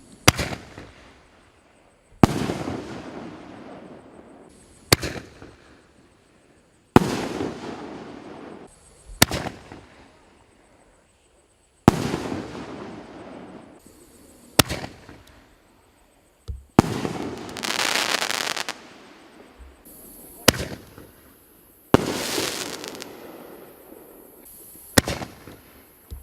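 Piroff "Flagman" OS03006200 firework battery going off: a sharp bang every two to three seconds, each trailed by a couple of seconds of fading crackle, with one longer, louder stretch of crackling about two-thirds of the way through.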